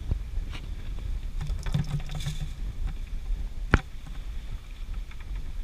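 Scissors snipping a small baitfish into pieces on a plastic bucket lid: a few light clicks and one sharp snap about two-thirds of the way through, over wind rumble on the microphone.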